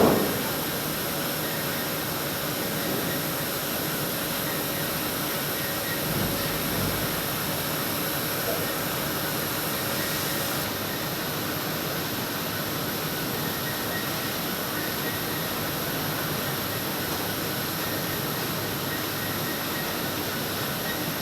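Button-polishing machinery running with a steady mechanical din, with a short knock at the start. A high hiss in the noise drops away about ten seconds in.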